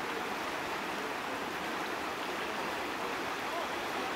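Steady rush of shallow river current flowing.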